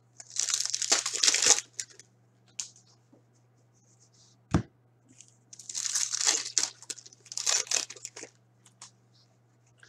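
Foil wrapper of a 2018-19 Upper Deck Series 2 hockey card pack torn and crinkled, with cards sliding through the hands, in two spells of rustling and a single sharp click between them. A low steady hum lies underneath.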